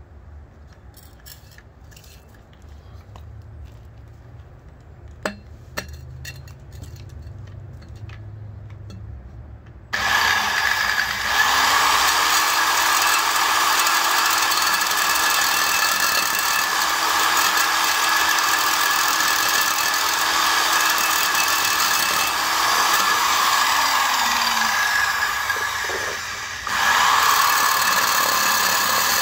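Homemade core drill, an electric angle grinder turning a pipe core bit, cutting wet into concrete: the motor starts abruptly after a few seconds of small handling clicks, runs steadily with a high whine, dips off briefly near the end and starts again.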